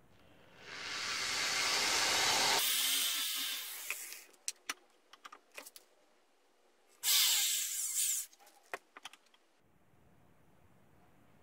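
Electric hand drill boring a small hole through a small bar clamped in a bench vise: a first run of about three seconds that winds down, then a shorter run of about a second that stops abruptly, with scattered clicks and knocks between and after.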